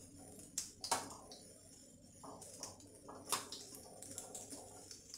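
Bread rolls deep-frying in hot oil: a faint crackling sizzle with scattered sharp pops and clicks as a spatula turns them.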